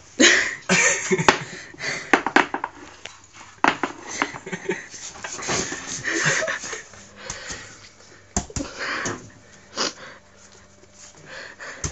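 A push broom's bristles brushing and scraping across carpet in short, irregular strokes as ferrets chase and grab at it, with scuffling and breathy bursts.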